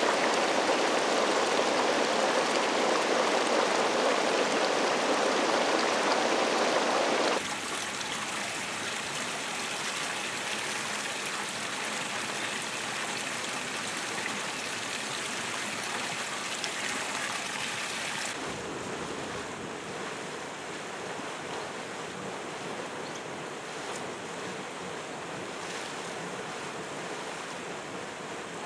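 Hot spring water bubbling and running over rock, a steady rush of water. It changes abruptly about seven seconds in and again around eighteen seconds, each time becoming quieter.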